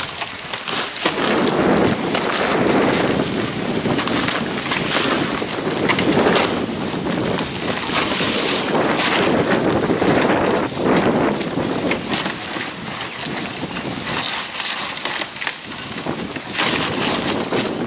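Roof shingles being torn off the roof deck: irregular scraping, crunching and crackling, mixed with wind buffeting the microphone.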